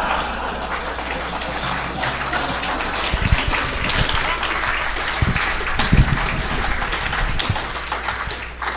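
Audience applauding, a steady patter of many hands clapping that eases off near the end, with a few low thumps in the middle.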